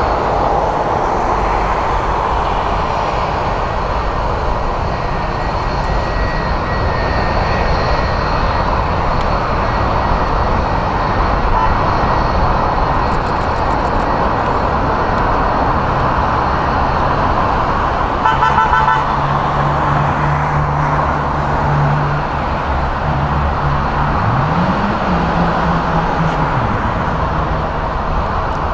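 Rolls-Royce Trent 7000 turbofans of an Airbus A330neo climbing out after takeoff: a steady rush of jet engine noise. In the second half a low horn-like tone joins in, gliding up and back down once near the end.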